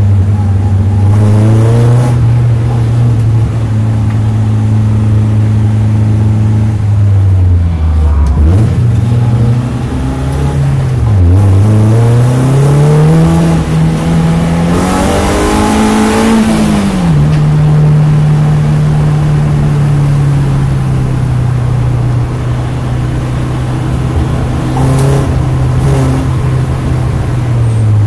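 BMW Compact race car's engine heard from inside the cabin, pulling at low speed. The revs dip and pick up twice about eight and eleven seconds in, climb for several seconds, then drop sharply near the middle and hold steady.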